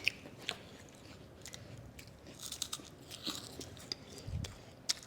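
Chewing a crunchy snack: scattered, fairly quiet crunches and mouth clicks.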